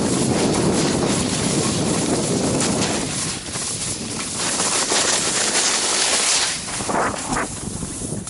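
Wind buffeting a selfie-stick camera's microphone while skiing downhill, mixed with the hiss of skis sliding over snow; the hiss turns brighter midway and breaks into a few short scrapes near the end.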